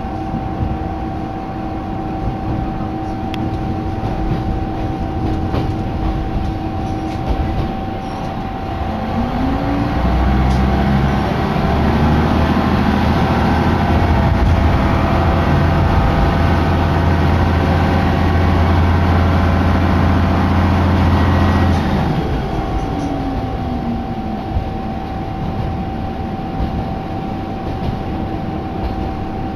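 Diesel railcar heard from inside the carriage, running with a steady high tone. About ten seconds in, the engine revs up and drones loudly under power for about twelve seconds, then winds back down and the car runs on more quietly.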